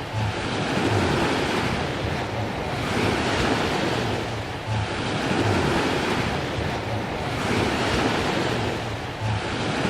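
Sea waves breaking and washing up on a sandy beach, surging and easing every few seconds, with wind buffeting the microphone.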